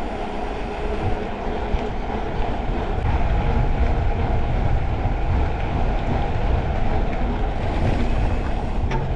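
Steady rush of running stream water, with a low rumble that grows stronger about three seconds in.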